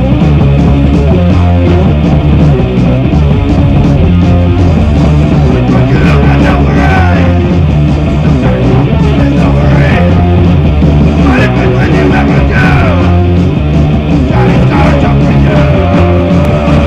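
Punk rock band playing a song, heard off a lo-fi tape of an FM radio broadcast.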